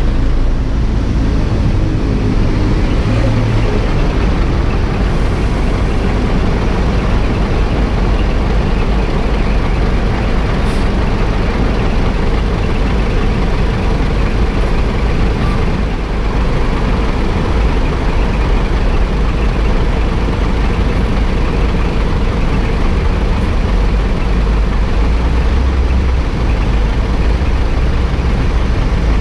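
Steady noise of busy road traffic, trucks, buses and cars around the rider, heard from a moving electric scooter, with a constant low rumble.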